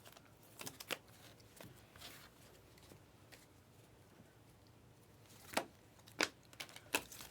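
Trading cards being handled and flipped through, with scattered soft snaps and rustles of card against card.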